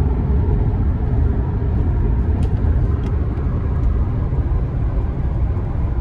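Car on the move: a steady low rumble of road and engine noise.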